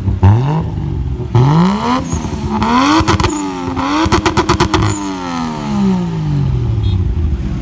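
A vehicle engine being revved: a few quick blips, then a climb to high revs held with a rapid stutter, before the revs fall away slowly and settle back to idle.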